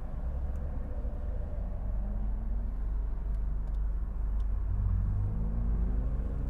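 Car driving: steady low engine and road rumble, the engine note climbing in pitch over the last two seconds as the car speeds up.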